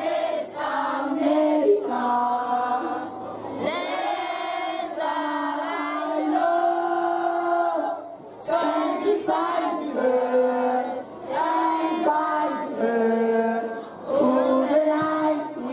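A mixed group of women, men and children singing an anthem together, with long held notes and short pauses between phrases.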